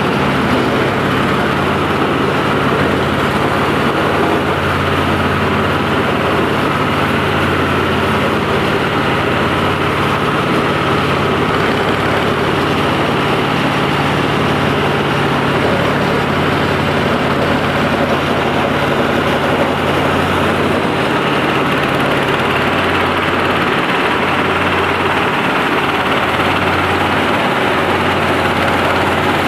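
Ishoku multifunction rice thresher running, a steady, loud engine-and-machine noise with a constant low hum.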